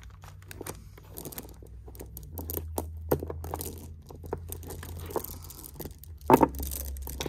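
Strands of pearls being handled and sorted on a board: the pearls click and rattle against each other in quick, irregular taps, with a louder burst of handling noise near the end. A low steady hum runs underneath.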